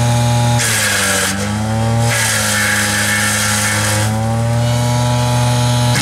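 Truxor DM 5000 carrier's engine running a hydraulic wood chipper as branches are fed in. The engine note sags and recovers as the chipper takes the load, with rushing bursts of chipping about half a second in and again from about two to four seconds.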